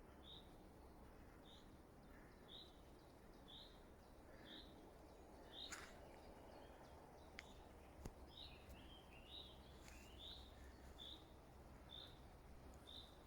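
A bird repeating a short, high chirp about once a second, with a few more varied notes in the middle, over a faint background hush. A few faint sharp clicks sound near the middle.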